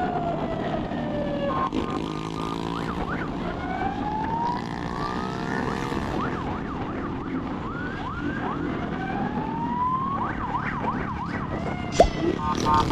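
Police-style siren fitted to a motorcycle, switching between modes: slow rising wails, quick yelping sweeps, and a rapid pulsing tone about two seconds in and again at the end. The motorcycle's engine runs steadily underneath, and there is one sharp click near the end.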